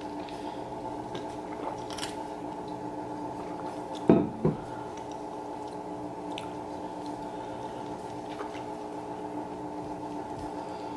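Drinking from an insulated metal water bottle: quiet swallowing and sloshing of liquid, with two short thuds about four seconds in, over a steady low hum in the room.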